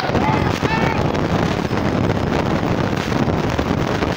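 Wind buffeting a phone's microphone: a loud, steady rumbling noise, with faint crowd voices underneath in the first second.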